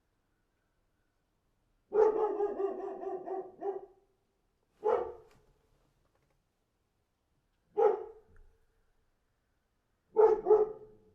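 A dog barking: first a drawn-out call of about two seconds, then single barks about three seconds apart, and a quick double bark near the end.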